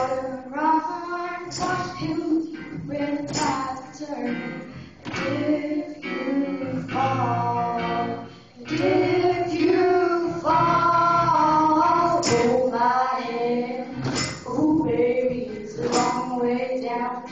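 Young girls singing a song into microphones, a sustained, steady melody line with a short break about eight seconds in.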